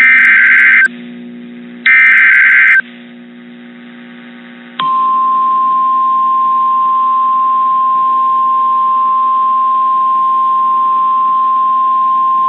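Emergency Alert System SAME header: two shrill, buzzing digital data bursts about a second each, ending about three seconds in. About five seconds in, the weather radio warning alarm starts: one steady, single-pitch tone held to the end.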